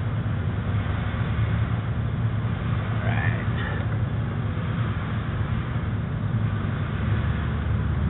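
A steady low mechanical hum, like a motor running, under an even hiss.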